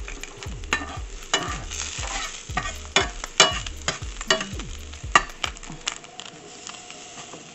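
Spatula scraping and knocking against a stainless steel frying pan while garlic cloves fry in hot oil with a light sizzle. The strokes come irregularly, several a second, then die away near the end, leaving only the faint sizzle.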